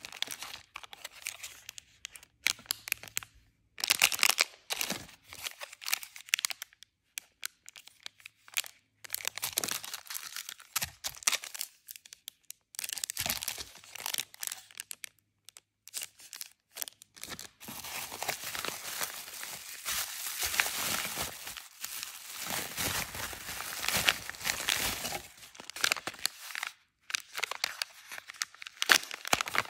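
Crinkling of clear plastic sleeves and a paper bag as they are handled and unwrapped. It comes in bursts with short pauses and runs most continuously for several seconds past the middle.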